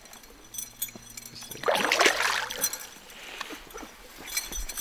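Hooked rainbow trout thrashing at the surface beside the boat: one splash about two seconds in, lasting about a second, over a faint low hum.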